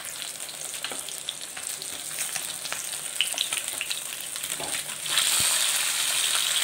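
Masala-coated fish steaks shallow-frying in oil on a tawa: a steady sizzle with scattered crackling pops. The sizzle grows louder about five seconds in, as a metal spatula turns the fish.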